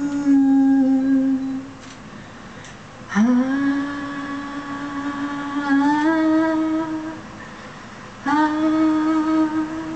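A woman's unaccompanied voice singing long held notes in three phrases with short breaks between; the middle phrase scoops up from a low pitch into its note.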